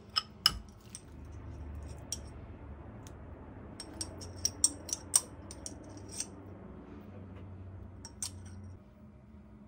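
Metal spoon clinking against ceramic bowls: a few sharp taps near the start, a run of light clinks from about four to six seconds in, and one more near the end. A low steady hum underneath stops shortly before the end.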